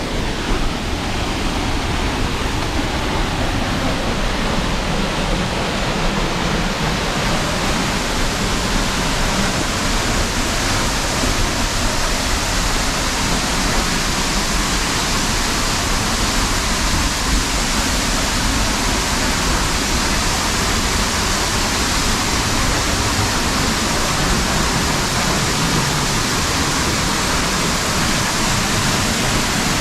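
Waterfall, a steady, loud rush of falling water.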